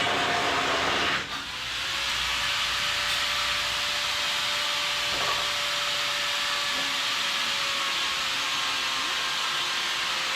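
Metal-cutting torch running with a steady hiss, which stops for a moment about a second in and then starts again.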